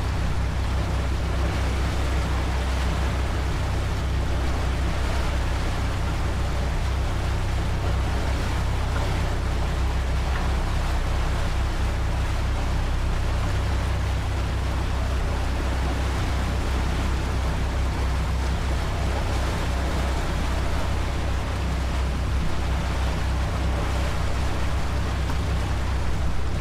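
A motor cruiser's Volvo Penta engine running steadily under way: an even low drone, with a steady rush of water and wind over it.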